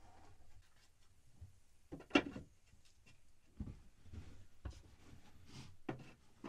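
A few scattered light knocks and clicks from objects being handled, the sharpest about two seconds in and duller thumps after it.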